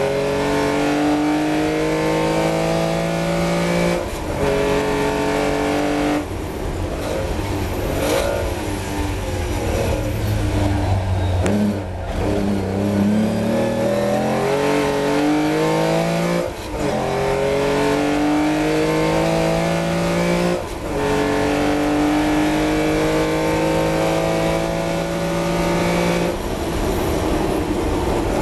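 Austin-Healey 3000's 2.9-litre straight-six racing engine at full throttle from the cockpit, rising in pitch through the gears with a short drop at each upshift, several of them. In the middle the revs fall and waver as the car brakes and downshifts for a slow corner, then the engine pulls hard and climbs through the gears again.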